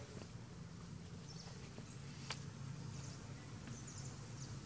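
Quiet outdoor ambience: a steady low hum with a few faint, short high chirps, and a single sharp click a little past two seconds in.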